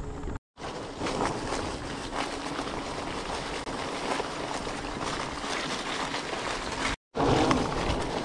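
Bike riding noise: tyres rolling over a dirt trail strewn with leaves, with rattling and wind on the microphone. The sound drops out completely for a moment twice, about half a second in and near the end.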